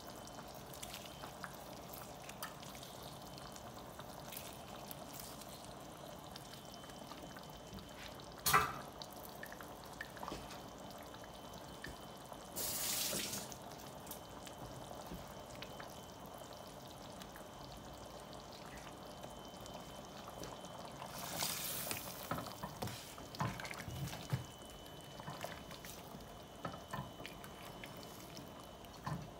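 Shrimp in a stainless steel pot of seafood boil sauce on the stove, with faint trickling and dripping liquid, scattered clicks and two short hissing rushes partway through. In the last few seconds a wooden spoon stirs the shrimp through the sauce, with small knocks and sloshing.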